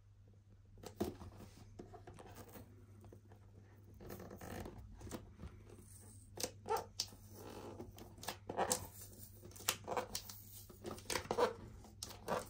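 Close-up handling of the shaver's retail packaging being opened: irregular rustles, scrapes and sharp clicks of cardboard and plastic. The shaver motor is not running.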